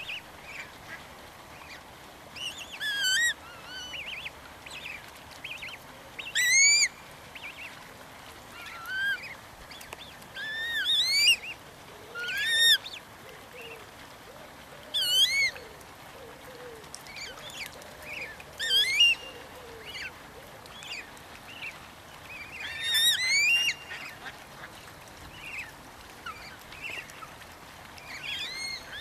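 Black swans and their cygnets calling: short, high, rising whistled calls repeated every two to three seconds, with softer squeaky calls between them.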